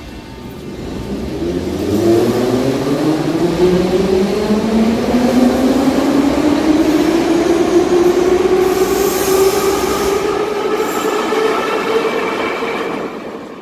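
Soviet-built 81-717/714 metro train pulling out of a station. Its traction motors whine in several pitches that climb steadily as it accelerates and level off after about eight seconds, over the rumble of the wheels on the rails.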